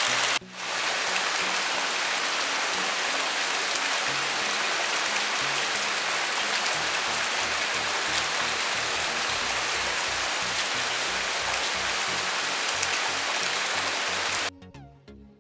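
Steady heavy rain falling on wet ground and puddles, with soft background music with low stepped notes under it. The rain drops out for a moment just after the start, and near the end it cuts off suddenly, leaving only light, evenly spaced music notes.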